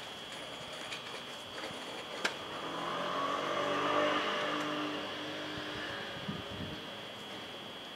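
A vehicle passing by out of sight. Its sound swells to a peak about halfway through and then fades away, with a steady pitched hum at its loudest.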